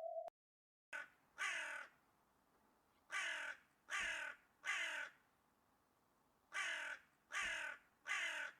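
Crow cawing: about eight short caws in groups of two or three, starting about a second in.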